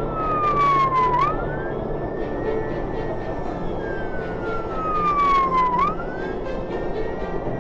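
Fire engine's siren on a slow wail: each cycle is a long falling sweep that turns sharply back up, bottoming out about a second in and again near six seconds. Under it are the truck's engine and road noise, heard from inside the cab.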